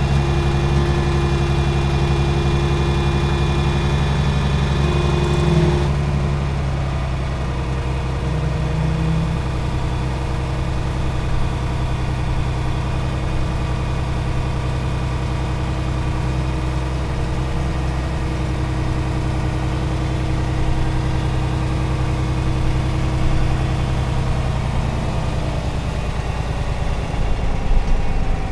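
Metal parts squeaking in a sustained, drawn-out drone of several steady pitches. The higher, shriller tones drop away about six seconds in.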